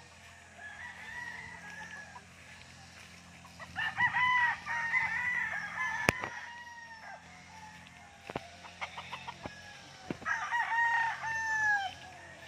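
Several gamecocks crowing, overlapping, with two loud bouts of crowing about four seconds in and near the end and fainter crows further off. A few sharp clicks are heard between them.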